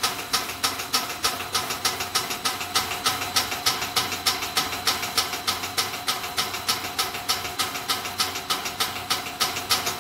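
Snack pellet extrusion line machinery running steadily, a rhythmic hissing clatter about five times a second over a constant machine hum.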